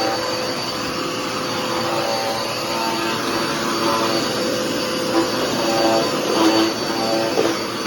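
Dirt Devil PowerMax Pet vacuum cleaner running steadily, its motor whine holding a constant pitch, with extra wavering tones in the airflow that come and go as it works.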